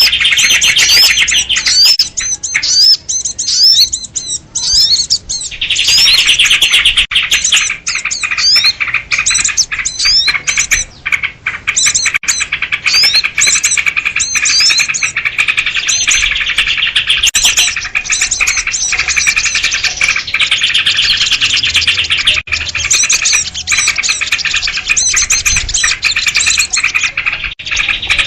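Dense chorus of many small birds chirping and chattering at once, with rapid, overlapping high notes that thin out briefly a few seconds in. It is an agitated 'noisy birds' mix with sooty-headed bulbuls (kutilang) in it, used as a lure call to draw small wild birds.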